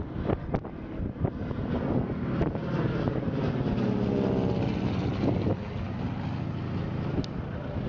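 Single-engine piston propeller plane flying past overhead, its engine drone growing to its loudest about four seconds in and dropping in pitch as it passes, with wind buffeting the microphone.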